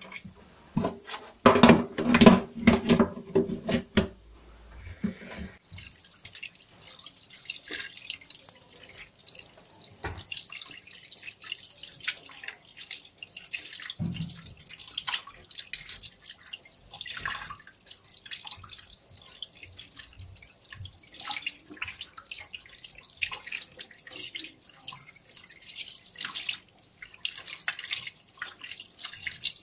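Tap water running and splashing into a stainless steel sink as raw chicken pieces are rinsed and rubbed by hand, with irregular splashes and drips. The water is preceded in the first few seconds by a brief, loud pitched sound.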